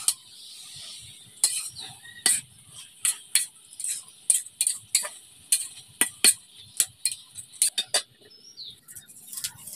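Metal spatula scraping and clinking against a karai (wok) as taro leaves are stirred, in quick, irregular strokes. The pan's lid is set back on near the end.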